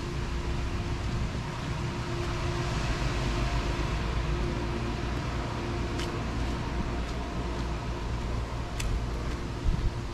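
A steady mechanical hum over a low rumble, with a few light clicks partway through.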